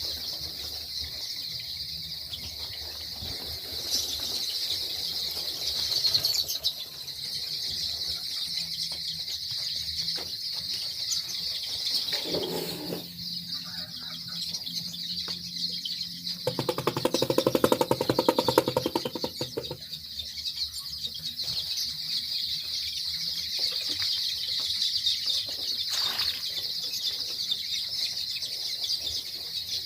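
Many chicks in a poultry shed cheeping nonstop in a dense chorus, with a loud flurry of wing flapping lasting about two seconds a little past the middle.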